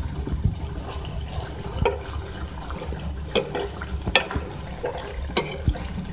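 Chicken in bubbling gravy being stirred in a metal karahi with a slotted spatula: wet squelching and bubbling of the gravy, with several sharp clicks of the spatula against the pan, the loudest about four seconds in, over a steady low hum.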